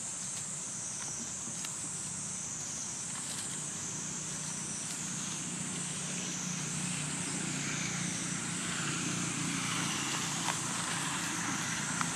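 Outdoor ambience: a high, shrill insect chorus swelling and fading in slow, even waves over a steady low hum of distant traffic, with a few light rustles in the leaf litter.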